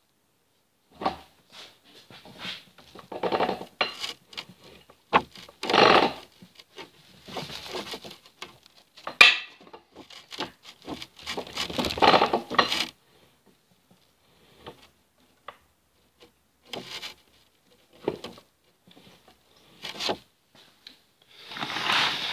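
Irregular metal clunks, scrapes and clicks from the shift fork, selector and sleeve of an opened-up NP208 chain-drive transfer case being forced by hand toward a shift. It resists because the other half of the case is off and nothing holds the mechanism solid. The rattling and scraping is busiest in the first half and thins to scattered clicks later.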